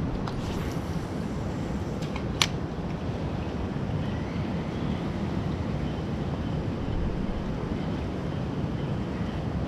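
Strong wind buffeting the microphone, a steady low rumble, with one sharp click about two and a half seconds in.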